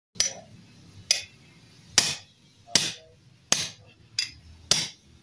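Hammer blows on metal: seven sharp strikes, a little under a second apart, with a brief metallic ring after each. Two of the blows are lighter than the rest.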